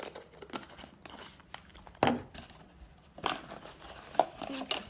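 Cardboard packaging being handled and opened by hand: irregular scrapes, taps and rustles, with a sharper knock about two seconds in.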